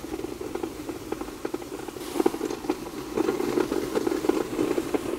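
Westermann WR 870 Akku battery radial brush sweeper running, its rotating disc brush sweeping leaves and grit off brick paving: a steady hum with constant crackling and pattering of bristles and debris on the pavers, a little louder from about two seconds in.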